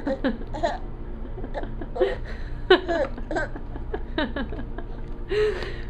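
A woman hiccuping, with a baby laughing in short squealing bursts at the hiccups.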